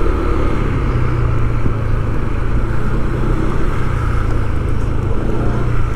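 A motor vehicle engine running steadily close by, with a constant low hum, over the general noise of street traffic.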